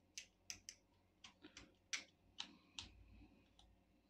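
A hand tool scraping away at a laptop's plastic case, heard as a string of short, faint scratches and clicks at an irregular pace, the sharpest about two seconds in.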